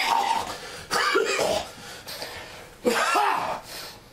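A man coughing in three bouts: one at the start, another about a second in, and a last one about three seconds in.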